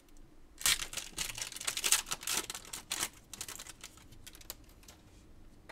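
Foil wrapper of a baseball card pack crinkling and crackling as it is torn open and the cards are slid out: a dense run of crackles over the first three seconds, then a few fainter clicks.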